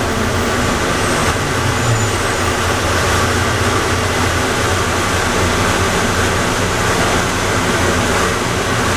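Atlanta airport Plane Train, a rubber-tyred automated people mover, running with a steady rolling and motor noise and a constant low hum.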